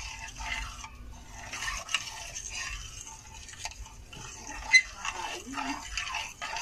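A utensil stirring a thick milk-and-egg custard mixture in a bowl, with irregular scraping and light clinks against the bowl. There is one sharp, loud clink almost five seconds in.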